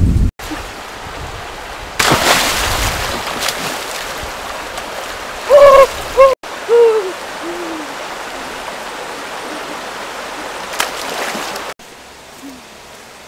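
Steady rush of stream water. A few seconds in there are a few short, loud pitched hoot-like calls, each falling in pitch, with two fainter ones after.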